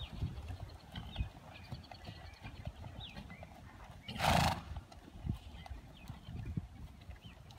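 A grey horse trotting on a soft dirt arena, its hooves landing in repeated dull thuds. About four seconds in, a loud breathy rush of noise lasts about half a second, likely the horse blowing out through its nostrils. Faint short chirps of small birds sound throughout.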